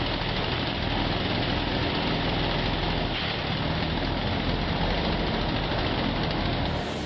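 Chainsaw engine running steadily at low speed. Right at the end the sound changes abruptly to a louder, brighter one.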